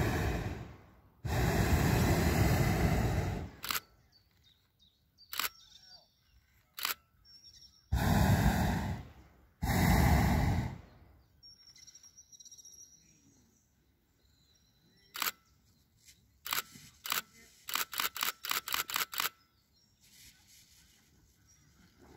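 Hot-air balloon's propane burner firing in four blasts of one to two seconds each, two near the start and two more about eight seconds in, as the balloon comes in to land. Sharp clicks fall between the blasts, with a quick run of about a dozen clicks two-thirds of the way through.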